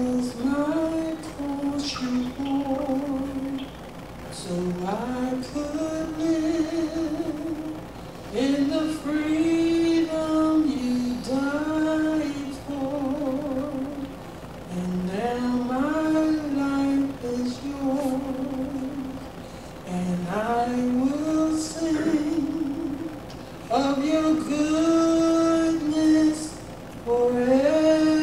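A woman singing a slow hymn solo with no instruments. Each phrase scoops up into long held notes with vibrato, with short breaks between phrases.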